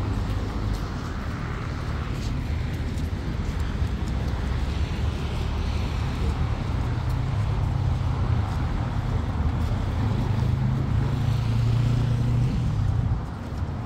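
Steady low engine hum of motor traffic, with a shifting low drone over general outdoor background noise.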